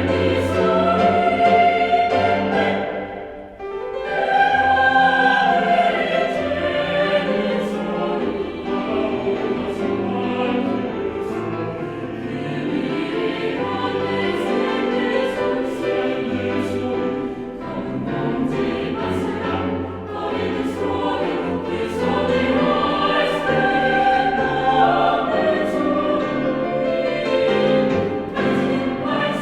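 Mixed choir singing a bossa nova–style choral piece with accompaniment, the full ensemble dipping briefly about three seconds in before coming back in.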